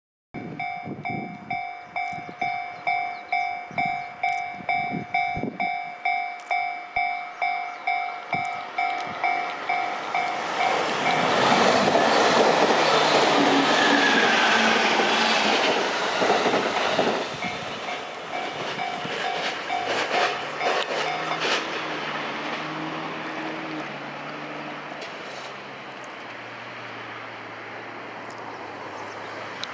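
A JR Kyushu 813 series + 811 series electric train of seven cars passing at speed. It builds to a loud rush with wheel clatter over rail joints about ten seconds in, then fades away. A level crossing bell dings about twice a second before the train arrives and again after it has passed, and stops a little after twenty seconds in.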